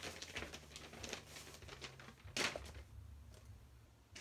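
Sheet of paper rustling as it is unfolded, in a run of short rustles with one louder rustle about two and a half seconds in.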